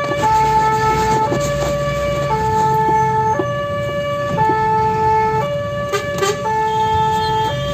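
Fire engine's two-tone hi-lo siren, switching between a higher and a lower note about once a second, with the truck's engine running steadily underneath.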